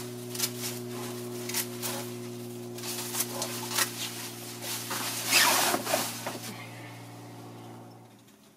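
Rustling and crackling of a pulled-out cucumber plant's leaves and stems being handled and bundled, with scattered snaps and a louder rustle about five seconds in. A steady low hum runs underneath and stops near the end.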